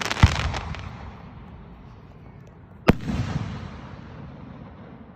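Fireworks exploding: a loud bang with a quick flurry of crackles about a quarter second in, then a second sharp bang near three seconds, each followed by a fading rumble.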